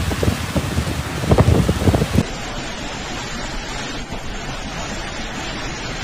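Storm wind gusting hard against the microphone over heavy rain. About two seconds in it changes abruptly to a steady hiss of driving rain.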